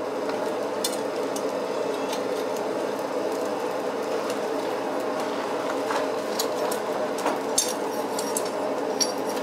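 Light metallic clinks and taps of blacksmith's tongs and steel as the carbon-steel bit is fitted into the split of the tomahawk blank, scattered and most frequent in the second half, over a steady low hum.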